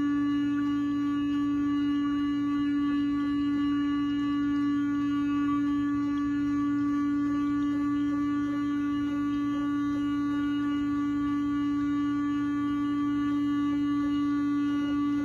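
Small vibrator motor on a gold-finishing table running steadily and shaking the table, a constant hum at one pitch with a row of overtones above it.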